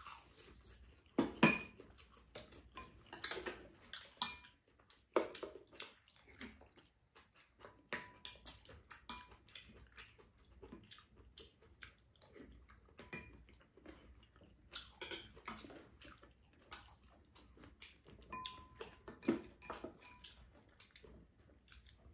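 Chopsticks and spoons tapping and clinking against ceramic bowls during a meal, with chewing in between: an irregular scatter of short clicks and taps, a few of them ringing briefly.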